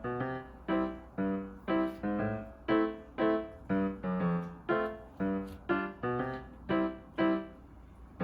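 Background music: piano, or an electric piano, playing a bouncy melody of separate notes at about two or three a second.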